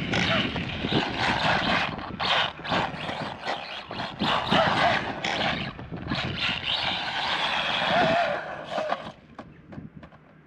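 Arrma Mojave Grom BLX RC truck driven hard on a 3S battery over dirt and grass: the brushless motor whines, its pitch wavering up and down with the throttle, over the rattle and scrabble of the drivetrain and tyres. The noise falls away sharply about nine seconds in as the truck backs off or drives away.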